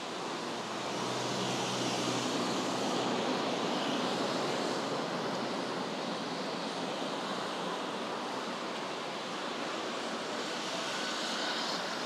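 Steady hiss of rain and traffic on a wet city road, swelling as vehicles pass, loudest around two to four seconds in and again near the end.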